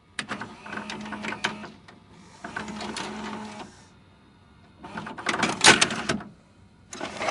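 VCR tape mechanism whirring and clicking in four short bursts.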